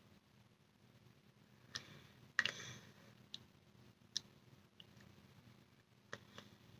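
Faint, scattered small mouth clicks and lip smacks as the lips are lined with a lip liner pencil. There are about seven short clicks, the loudest about two and a half seconds in.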